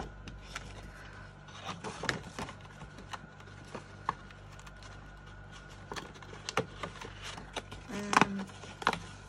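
Die-cut cardstock and paper sheets being handled and turned over on a table: scattered light taps, clicks and rustles over a low steady hum, with a brief pitched sound near the end.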